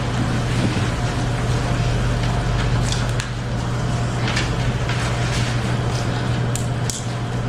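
Steady low hum and room noise, with a few brief soft rustles and knocks as script pages and a small book are handled.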